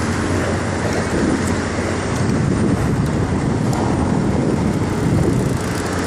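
Inline skate wheels rolling over rough concrete strewn with small rocks: a steady rumble.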